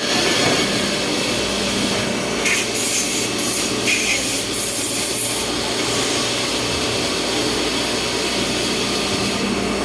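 CNC milling machine running and cutting, a steady grinding noise over a constant hum, with sharper hissing bursts of cutting noise between about two and a half and five and a half seconds in.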